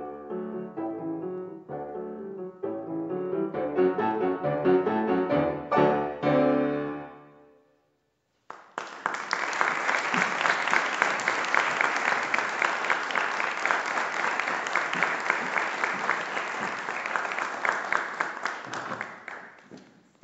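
Grand piano playing the last bars of a piece, which ends about seven seconds in and dies away. After a brief silence, audience applause starts and runs for about eleven seconds before fading.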